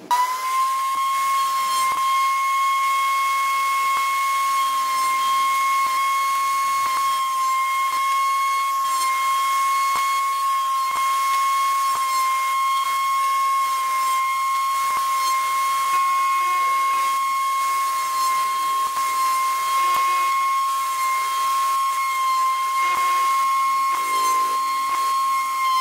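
Table-mounted router switched on, its motor spinning up in a fraction of a second and then running at a steady high whine. Faint ticks come as small wooden pieces are pushed past the bit.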